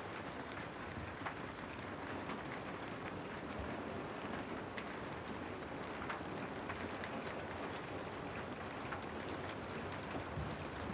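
Steady rain falling, an even hiss with many small scattered drop patters.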